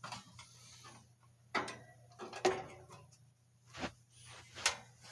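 Knocks and scrapes of an all-metal box fan being handled and turned around, about four short knocks spread over a few seconds.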